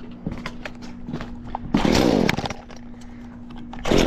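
A new Husqvarna 120 two-stroke chainsaw being pull-started: the engine fires and runs briefly with a rising-and-falling note about two seconds in, then fires again briefly near the end, catching after almost three pulls.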